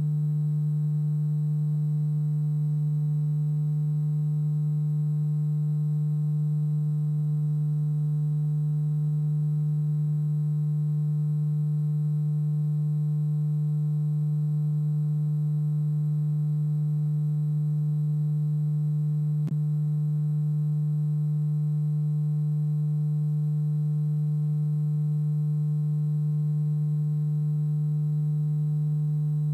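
A steady low electrical hum: one loud, unchanging low tone with fainter higher overtones, holding an even level throughout.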